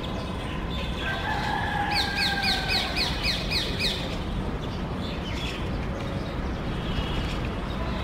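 Common myna calling: a quick run of about eight sharp, falling notes, roughly four a second, over a steady low background rumble.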